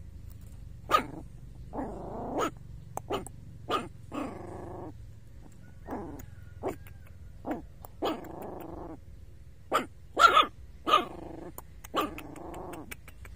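Young puppy growling and yapping: pitched growls of half a second to a second traded with short sharp barks, the loudest barks about ten to eleven seconds in.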